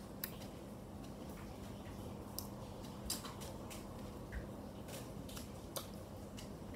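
Faint, scattered mouth clicks and smacks from chewing bread with Nutella and licking fingers, over a steady low hum.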